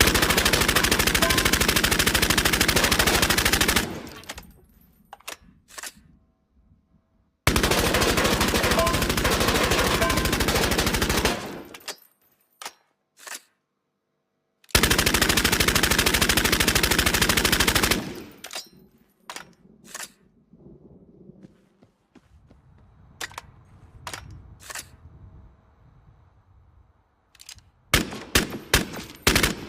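Tommy gun (Thompson submachine gun) firing: three long bursts of rapid automatic fire, each lasting three to four seconds, then scattered single shots and a quick string of shots near the end.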